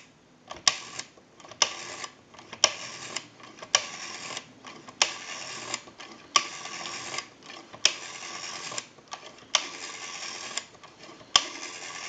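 Automatic Electric AE40 rotary telephone dial being dialed one digit after another, about nine times. Each pull is let go with a click and followed by the dial's whirring return, and each return lasts longer than the one before as the digits climb toward 9.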